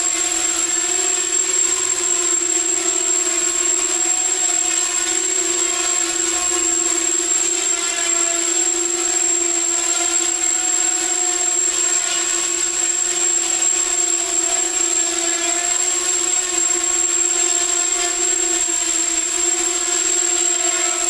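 250-size racing quadcopter hovering on 5-inch RPG 5030 propellers: a steady buzzing drone from its four motors and props, with a thin high whine over it.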